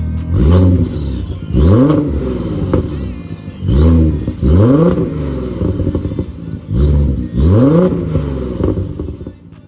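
Audi B5 S4's 2.7-litre twin-turbo V6 revved in six quick blips, paired two by two, each rising and dropping back. A high whistle falls away after each pair.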